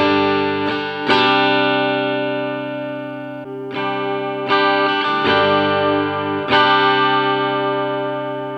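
Electric guitar through a small combo amp with an overdrive pedal: chords strummed and left to ring, about six strums, the loudest about a second in and about two-thirds through. The guitar sounds through a single coil of a home-made humbucker, the flat slug-pole coil at first and the screw-pole coil after a short break a little before the middle.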